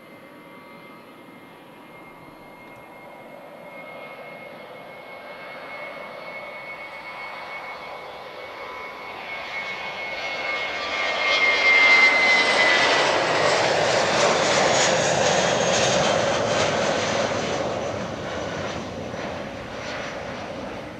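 A Jetstar jet airliner's engines grow louder as it comes along the runway. A steady whine falls in pitch as it passes, about twelve seconds in. Rough, crackling engine noise follows and fades as it moves away.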